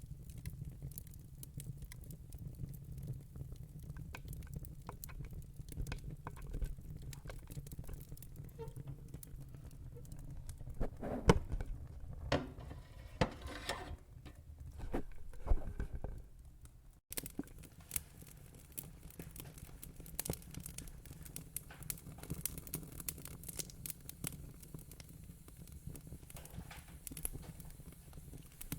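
Wood fire crackling: irregular small pops and snaps over a steady low rumble. A run of louder pops comes about eleven to sixteen seconds in, and the sound cuts out for an instant just after.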